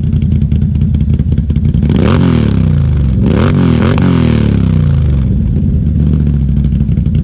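Can-Am Renegade XMR 1000R's Rotax V-twin idling through a freshly installed aftermarket dual exhaust. The throttle is blipped a couple of times about two to four seconds in, with the pitch rising and falling back, before the engine settles to idle again.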